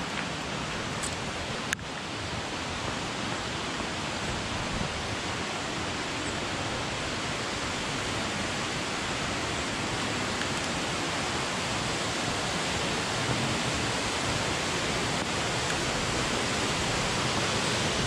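Waterfall on Walden Beck giving a steady rush of falling water that grows slowly a little louder, with one short click about two seconds in.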